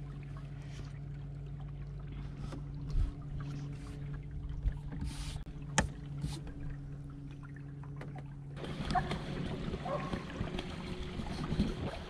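Canoe on the river: a steady low hum with a few sharp knocks. About two-thirds of the way through the sound changes suddenly to a fuller rush of water and wind noise.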